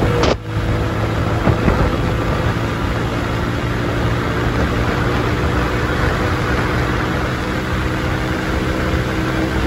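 A motor vehicle running: a steady engine hum under constant road and wind noise.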